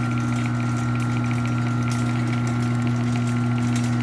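Chamberlain garage door opener motor running steadily as it drives the door closed, a constant hum with faint ticking from the drive.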